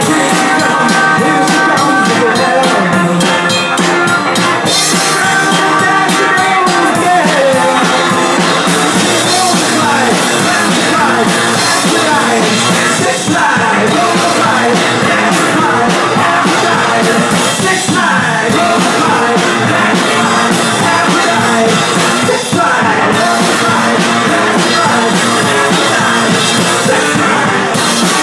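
Rock music with drums and guitar, playing loud and steady.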